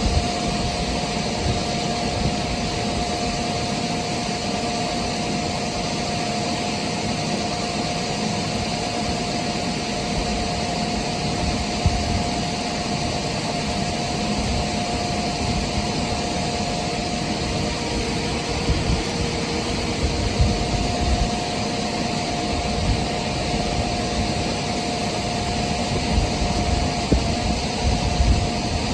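Heavy engine or farm machinery running steadily, with a steady whine over the drone.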